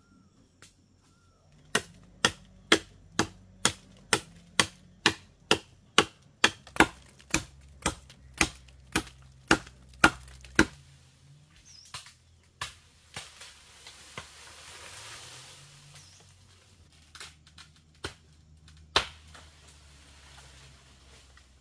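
A tool striking bamboo in hard, evenly spaced blows, about two a second, for some nine seconds, then a few scattered single strikes.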